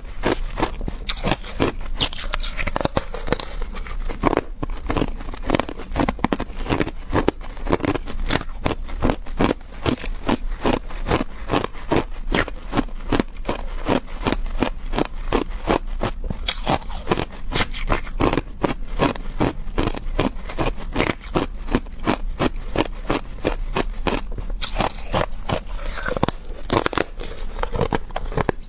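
Hard clear ice being bitten and chewed, a continuous run of crisp cracks and crunches, several a second.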